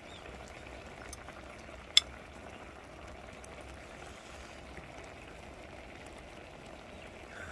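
Pan of braised mackerel and radish simmering with a soft, steady hiss. A sharp click about two seconds in, as a metal spoon strikes a ceramic bowl.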